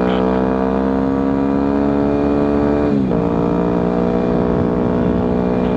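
Motorcycle engine pulling under load, its pitch climbing steadily. About three seconds in the pitch drops quickly as it shifts up a gear, then it pulls on again, with wind rumble underneath.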